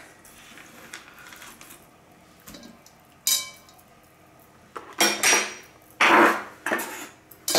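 Kitchen prep clatter: a few sharp clinks of metal and ceramic utensils, with a knife working on a wooden cutting board as chopped vegetables are cleared into a ceramic bowl. The knocks come in a handful, mostly in the second half, one of them longer and louder.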